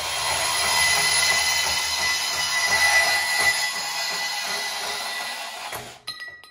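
Milwaukee M18 FUEL cordless compact bandsaw running and cutting through 2x2-inch, 1/8-inch-wall square steel tubing, a steady grinding hum of the blade in the metal. The saw stops about six seconds in as the cut finishes, with a sharp metallic clink and brief ringing.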